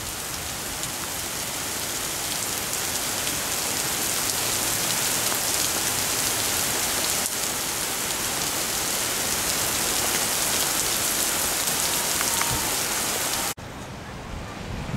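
Heavy rain falling in a steady, dense hiss that starts abruptly and cuts off suddenly near the end.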